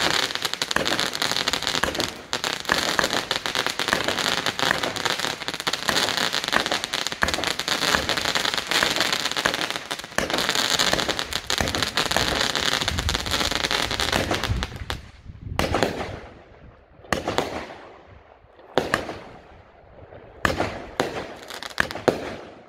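Fireworks going off: a dense, unbroken crackle of many rapid pops. About fifteen seconds in it thins to separate bangs with short gaps between them.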